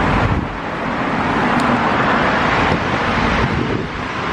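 Steady rushing urban noise, heavy in the mids, with a low rumble that drops away about half a second in.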